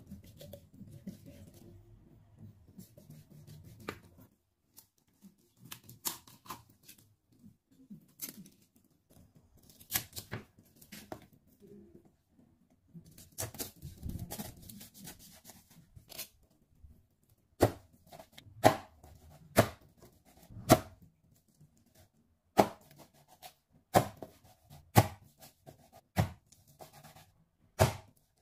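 A Chinese cleaver cutting through a whole raw chicken with soft scraping and tearing, then chopping the meat into pieces. In the second half come sharp single chops, about one a second, as the blade strikes the wooden cutting board.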